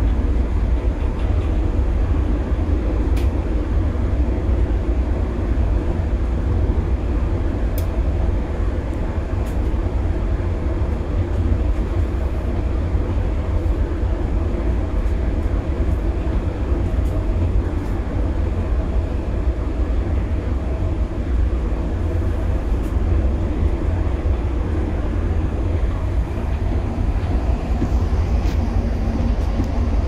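Steady low rumble of a moving public transport vehicle heard from inside, its running noise unchanging throughout, with a few faint ticks.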